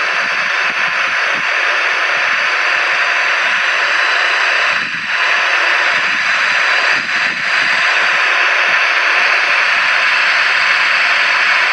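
Steady, loud hiss of radio static, as from an airband radio with the squelch open, dipping briefly about five seconds in and again near seven seconds.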